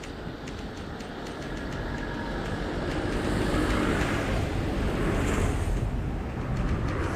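A motor vehicle passing on the road, its noise swelling from about three seconds in, over a low rumble of wind on the microphone.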